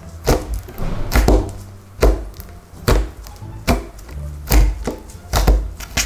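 Hands pressing, poking and folding a soft slime, each squeeze giving a wet squishing pop, about once a second.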